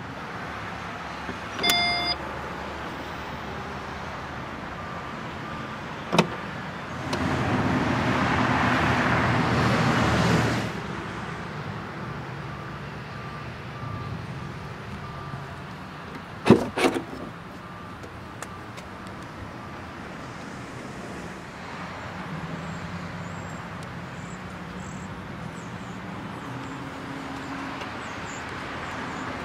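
A short electronic chime about two seconds in, then the Tesla Model S's power liftgate motor runs for about four seconds, with a faint repeating warning beep. About halfway through there is a sharp double click, the sound of a car door latch, and then steady outdoor background.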